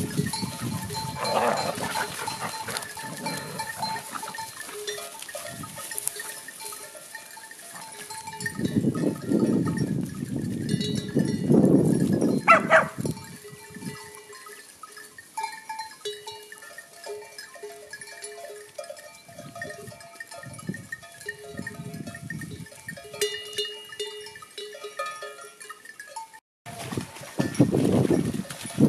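Bells on a grazing flock of sheep and goats clinking and ringing irregularly as the animals move, with stretches of low rumbling noise and one short animal call about twelve seconds in.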